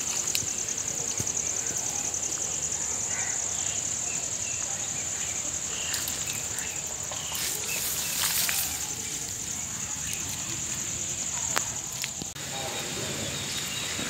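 Insects trilling in a steady, high, fast-pulsing chorus, with occasional rustles and snaps from steps through dry leaf litter.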